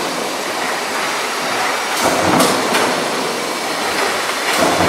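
Sheet-metal stamping line running: steady machine noise from the coil feeder and power punch press, with a few sharp strokes about two seconds in and again near the end.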